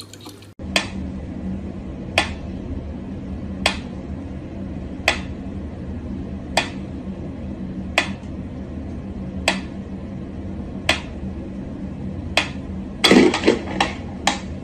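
Mechanical pendulum metronome ticking slowly and evenly, about one sharp tick every second and a half. Near the end, a quick clatter of several knocks breaks the beat.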